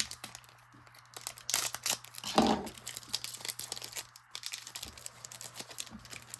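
Hockey card pack wrapper crinkling and tearing open, with cards rustling and flicking as they are handled; the loudest crinkling comes around two seconds in.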